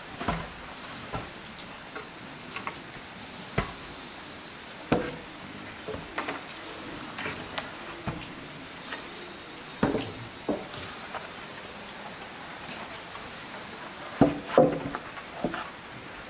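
Irregular knocks and taps, about a dozen, scattered over a faint steady hiss, with a closer cluster of louder knocks near the end.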